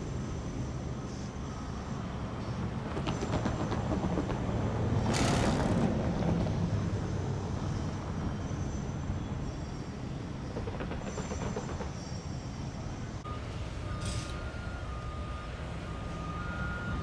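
Steady rumble of passing traffic that swells about five seconds in, with a short hiss at its peak and a faint high tone starting near the end.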